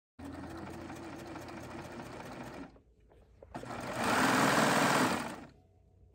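Babylock Triumph serger running in two spurts of stitching: a steady run of about two and a half seconds, a brief pause, then a second, louder run that stops about a second before the end.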